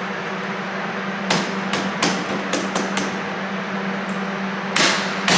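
A quick series of sharp knocks and clacks, about six in under two seconds. A longer scraping knock follows near the end, over a steady low hum.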